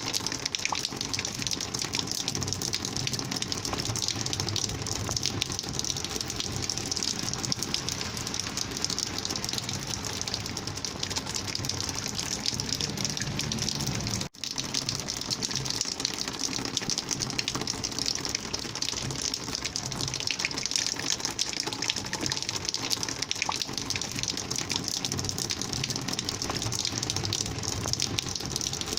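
Rainwater flowing and gushing in a steady rush, with a split-second dropout about halfway through.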